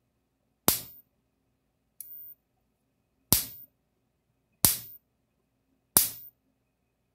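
Kencove KF6000 6-joule low-impedance electric fence energizer arcing across a screwdriver gap of about 1/8 inch between its fence and ground terminals: a sharp spark snap about every 1.3 seconds, five in all, the second much weaker. A nice, healthy spark, the sign that the repaired unit is putting out a full pulse.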